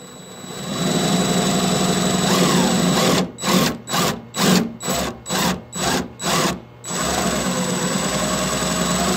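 DeWalt 1/4-inch impact driver spinning a glass-and-tile bit against window glass. The motor runs steadily, then for a few seconds in the middle the trigger is pulsed on and off about three times a second, then it runs steadily again.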